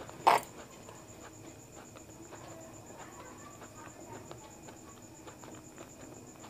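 Mouth sounds of someone eating: one sharp smack about a third of a second in, then faint chewing, under a steady high-pitched pulsing tone in the background.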